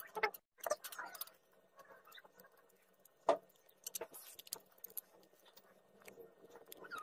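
A thin metal stick scraping and tapping against a small plastic tray as brown powder is stirred into a clear glue, in irregular clicks and scrapes with two sharper taps, near the start and about three seconds in.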